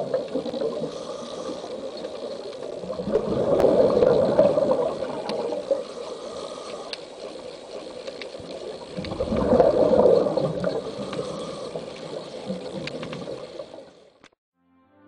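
Underwater sound of a scuba diver breathing: a steady rush of water noise that swells into a loud gush of exhaled bubbles near the start, again about 4 s in and about 10 s in, then cuts off about 14 s in.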